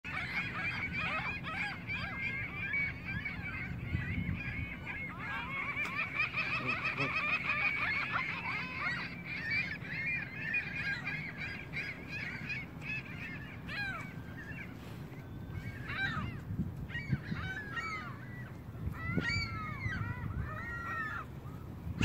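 Canada geese honking, many calls overlapping at first, then single honks coming a second or so apart in the second half.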